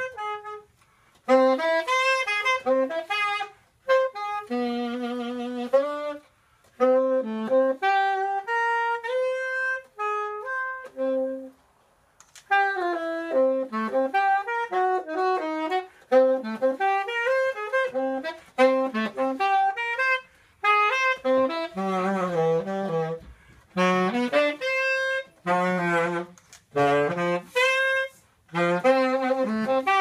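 Unaccompanied saxophone playing a slow melody in short phrases, each followed by a brief pause, the opening of a jazz piece.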